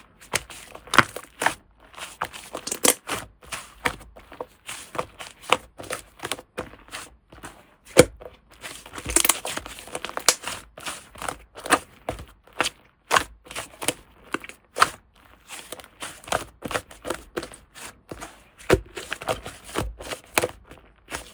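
Slime being squeezed, folded and pressed by hand, giving dense, irregular crackling and popping clicks.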